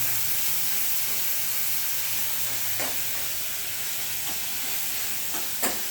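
Chopped onions frying in oil in a pan with a steady sizzle while they cook toward brown, with a couple of light clicks about three seconds in and near the end.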